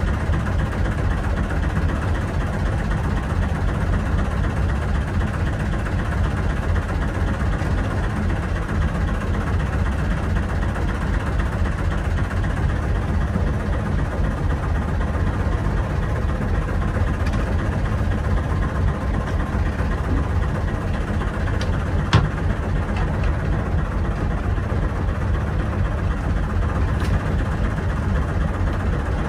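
A fishing boat's engine running steadily, with one sharp knock about two-thirds of the way through.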